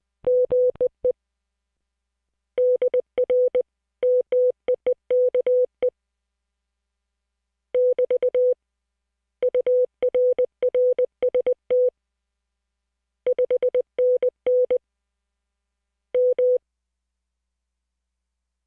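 Morse code (CW) received on the CQ100 VoIP ham radio transceiver: one clean, steady mid-pitched tone keyed on and off in dots and dashes, sent in several groups with pauses between them and no static between the elements.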